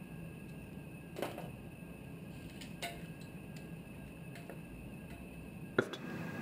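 A wooden spoon stirring tomato sauce in a steel cooking pot, with light knocks against the pot about a second and about three seconds in, over a steady low hum. A single sharp click near the end.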